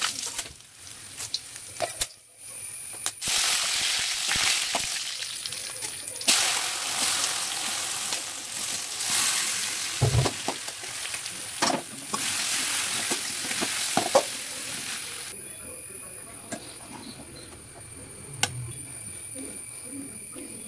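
Mustard seeds, curry leaves and dried red chillies spluttering and sizzling in hot oil in an aluminium kadai. The sizzling goes on as boiled tapioca is stirred in, with a few spatula knocks on the pan, and dies down about three-quarters of the way through.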